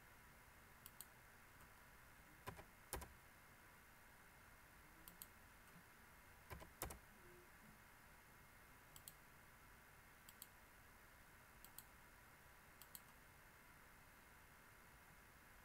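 Near silence broken by faint, scattered clicks at a computer, mostly in quick pairs, about a dozen in all, over faint steady background noise.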